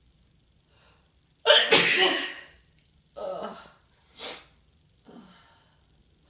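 A person's nose-tickle sneeze: a faint breath in, then one loud sneeze about a second and a half in, followed by three shorter, quieter breath sounds.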